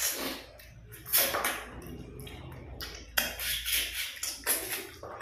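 Two people eating katla fish head by hand close to the microphone, chewing and sucking at the bones and meat in a series of short bursts.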